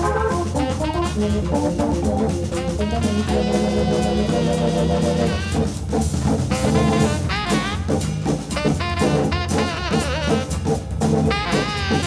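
Live jazz combo playing: tenor saxophone melody with long, wavering held notes over Hammond organ and a steady drum-kit beat.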